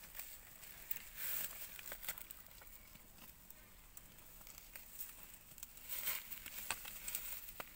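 Dry rustling and crackling of fingers pulling spiky burrs out of a water buffalo's coarse, matted hair close to the microphone, with a few sharp clicks and snaps.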